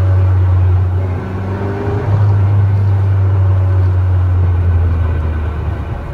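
Mazda Roadster (NC) with a six-speed manual gearbox driving, a steady low drone with a faint whine that rises about two seconds in. The gearbox has developed an abnormal noise that the owner suspects is a sign of impending transmission failure.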